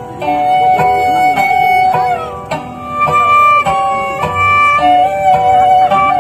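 Sundanese tarawangsa music: a bowed tarawangsa fiddle plays held, wavering melody notes over plucked notes from the jentreng zither.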